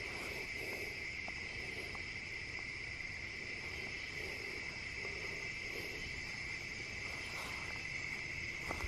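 A chorus of crickets trilling: a steady, unbroken high-pitched chirring that does not change.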